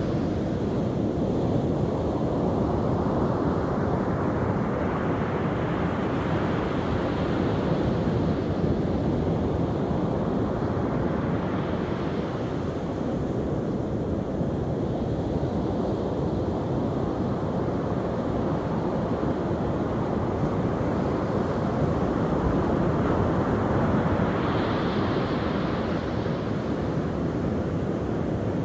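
Ocean surf breaking and washing up a sandy beach, a continuous rush that swells as each wave comes in, several times over. Wind rumbles on the microphone underneath.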